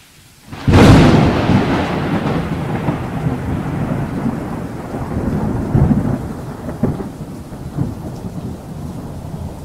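A sharp thunderclap about a second in, followed by long rolling thunder rumbles over steady rain hiss, slowly fading.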